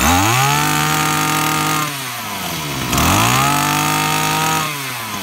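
32cc two-stroke engine of a Maruyama brush cutter revved twice to full throttle. Each time its pitch climbs quickly, holds steady for about two seconds, then drops back toward idle. This is a running test showing that the engine starts and pulls strongly.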